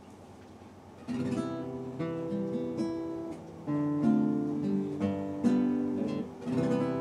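Background music begins about a second in: a melody of separate notes stepping up and down in pitch.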